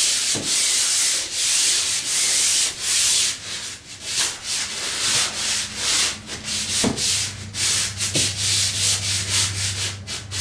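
Pole sander, sandpaper on a swivel head, being pushed back and forth across an old drywall ceiling to take off the last remnants of popcorn texture before priming. Each pass is a rasping stroke: about one and a half a second at first, quickening to about two a second in the second half.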